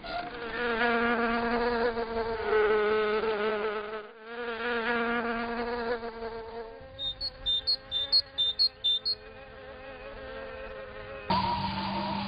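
Buzzing of a flying cartoon insect, a wavering drone that slides in pitch. About seven seconds in, a quick run of short high beeps sounds over a fainter buzz, and near the end a louder, lower buzz starts.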